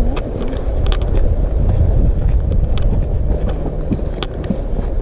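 Wind rumbling on the microphone, with a few sharp steps or scrapes of hiking boots on rock.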